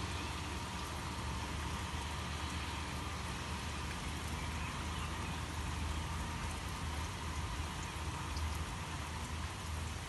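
Steady rain falling, with a few faint ticks of single drops.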